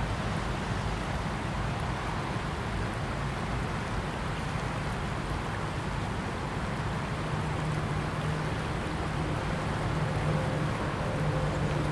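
Shallow river water flowing and rippling in a steady rush. A low steady hum, like distant engine noise, comes in about seven seconds in.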